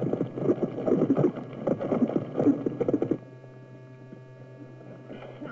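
Several horses galloping, a dense clatter of hoofbeats that cuts off abruptly about three seconds in, leaving a steady low hum.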